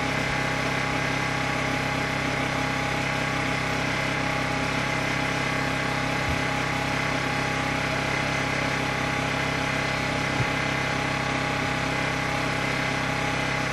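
Portable generator running steadily, an even engine drone that does not change, with a faint knock about six seconds in and another about ten seconds in.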